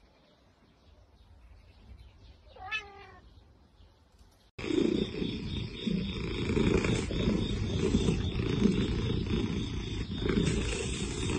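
A cat meows once, briefly, about three seconds in. Then, from about four and a half seconds in, there is a sudden switch to a much louder, continuous low cat vocalizing that carries on.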